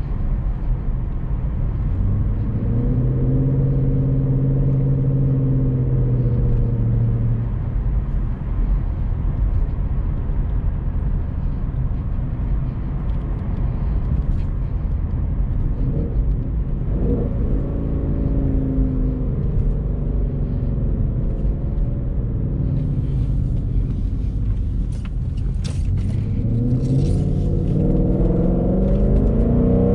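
Ford Mustang GT's 5.0 V8 engine running while driving, with steady road noise underneath. The engine note rises and holds for a few seconds early on, dips and rises again midway, and climbs steadily under acceleration near the end.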